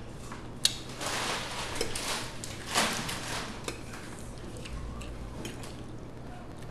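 Eating spaghetti: a metal fork clinks sharply against the plate about half a second in, then more fork scraping and clinks through the pasta, along with close-up chewing.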